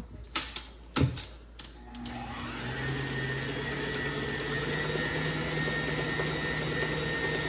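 A few clunks, then an electric mixer starts about two seconds in and runs steadily, beating cake batter.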